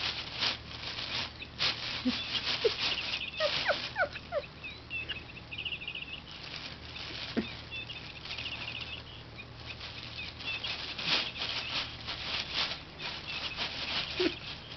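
Electronic bird-chirp sound module inside a cat's crinkle-bag toy, chirping in short warbling bursts again and again, over the crackle of the bag's crinkly material being moved about.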